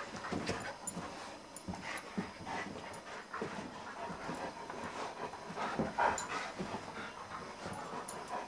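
A black German shepherd and a small white dog at play, panting, with short whines and scattered clicks and scuffles. The loudest burst comes about six seconds in.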